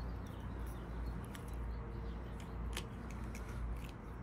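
Faint handling of a hose connector being slid onto the cut end of a rubber hose: a few scattered small clicks and rubbing over a steady low background rumble.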